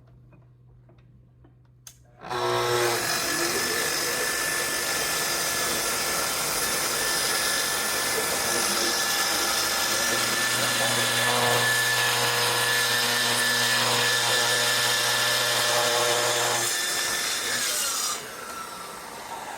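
Festool TS75 track saw starting a couple of seconds in and cutting steadily through a thick walnut slab on its final, deepest pass, the motor holding an even load, with its dust extractor running alongside. Near the end the saw is switched off and spins down with a falling whine.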